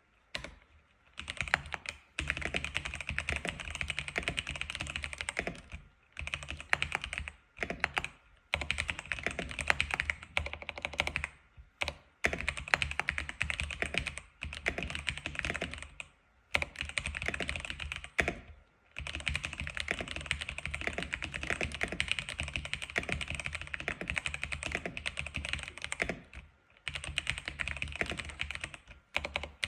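Typing on an X87 keyboard: fast runs of key clicks broken by brief pauses every few seconds.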